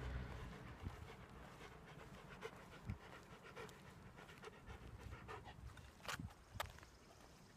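A dog panting faintly in quick, even breaths, with two sharp clicks about six seconds in.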